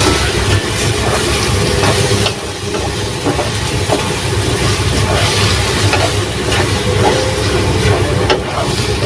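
Sponge gourd and squid cooking in a pan: a steady sizzling hiss with scattered small clicks.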